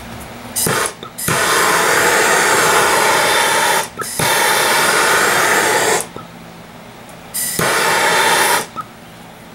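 Handheld blowtorch flame hissing in four bursts, the longest about two and a half seconds, with abrupt starts and stops. It is being passed along a concrete countertop edge to burn off protruding glass fibres.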